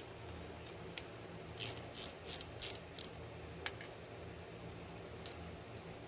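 A run of five sharp metallic clicks, about three a second, starting a second and a half in, with a few fainter single ticks around them: hand tools at work on a small ATV starter motor.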